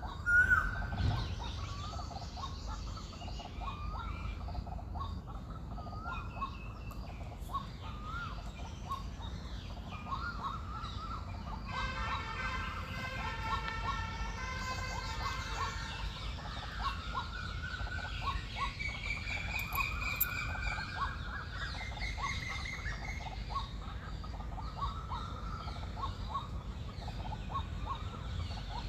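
Birds calling in a mixed chorus of short, repeated chirps. About halfway through, a longer, fuller call lasts a few seconds, followed by higher gliding calls.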